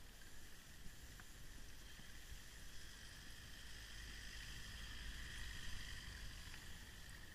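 Faint, steady road rumble and hiss of a bicycle being ridden, picked up by a camera on the rider or bike, with a thin steady high whine over it; the low rumble grows louder in the middle.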